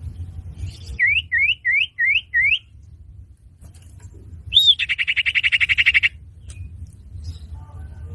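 Common iora (cipoh) calls from a bird-catchers' lure recording. Five quick rising whistles come first; a few seconds later a short high note runs into a rapid trill of over a second, all over a steady low rumble.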